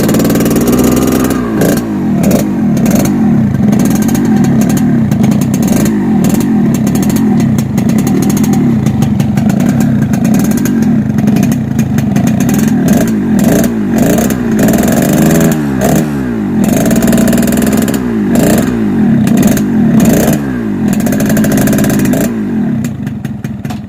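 Yamaha RX-King two-stroke single-cylinder motorcycle engine revved in repeated quick blips over idle. It runs through an exhaust that has been gutted ("bobok") to give the crisp, growling "garing ngorok" tone. The sound fades away near the end.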